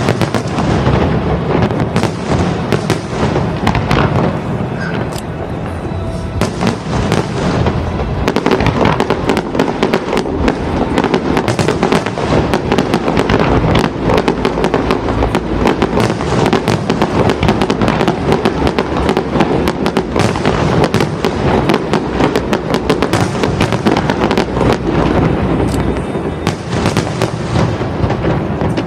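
Fireworks display in full barrage: a dense, continuous run of bangs and crackling bursts going off in rapid succession, thickening about a third of the way in and dying down at the very end.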